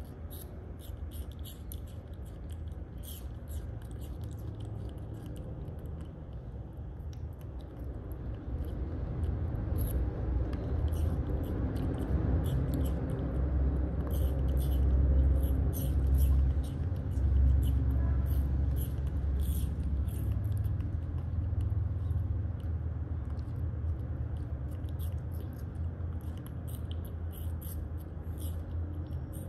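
A baby macaque chewing and biting small pieces of hard food, making many short, irregular crunching clicks, over a low steady rumble that grows louder in the middle.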